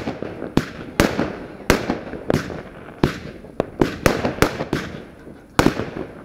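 Fireworks display: a rapid run of sharp bangs, about two to three a second, each trailing off in a rumbling echo. The bangs pause briefly about five seconds in, then start again with a couple of loud bangs.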